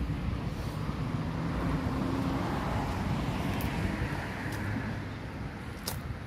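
A motor vehicle passing, its engine noise swelling over the first seconds and fading away, over outdoor background rumble. A small click near the end.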